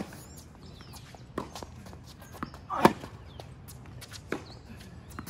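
Tennis rally on a hard court: sharp pops of a racket striking the ball and the ball bouncing, about one a second, the loudest about three seconds in.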